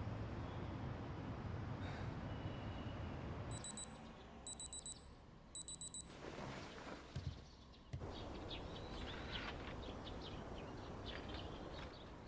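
Digital alarm clock beeping: three short bursts of quick, high-pitched beeps a few seconds in, over a low room hum, followed by faint rustling.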